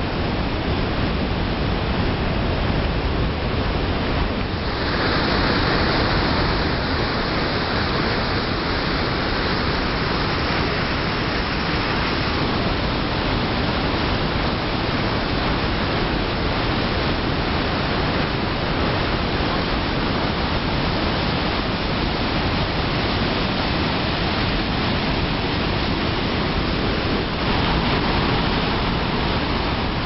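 Steady rush of the Rhine Falls, a large river waterfall churning over rock. It grows brighter and hissier about four seconds in.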